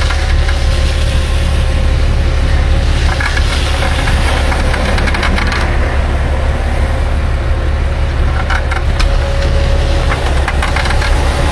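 Tow truck engine running steadily with a deep drone and light rattling.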